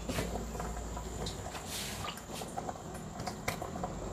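Chicken soup boiling hard in a stainless steel stockpot, bubbling and ticking, after the metal lid is lifted off at the start.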